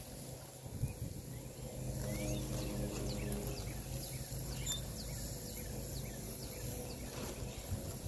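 Outdoor ambience of birds chirping repeatedly in short calls, over a low steady hum that grows louder about two seconds in.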